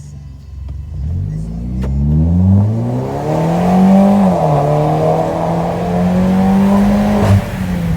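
Citroën DS5's turbocharged 1.6 THP four-cylinder accelerating hard through a downpipe and straight-through exhaust, a shrill note. The pitch climbs from about a second in, dips briefly at a gear change, then holds high until the throttle closes near the end with a sharp click.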